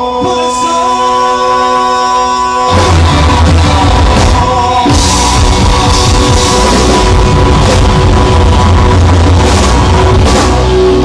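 Band music: held chords for the first few seconds, then bass and drums come in with the full band about three seconds in.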